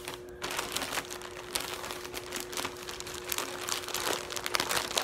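Plastic shopping bag crinkling and rustling with dense, irregular crackles as it is opened and items are pulled out of it.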